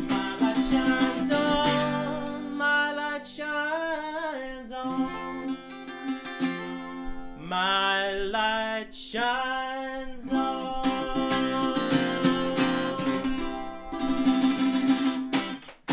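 A man singing over a strummed acoustic-electric guitar, with sung phrases that bend in pitch. The playing stops just before the end.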